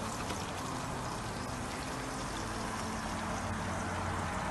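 Onions and ginger garlic paste sizzling in oil in a saucepan, a steady hiss.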